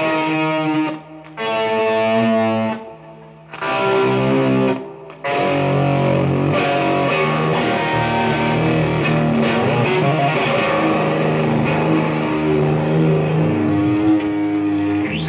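Electric guitar and bass guitar playing live: a few held chords with short breaks in the first five seconds, then continuous playing.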